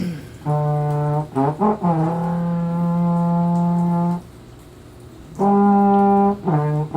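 A brass instrument being played as a practice phrase: a few short notes, then a long held note of about two seconds. After a brief pause comes another held note, then more short notes near the end.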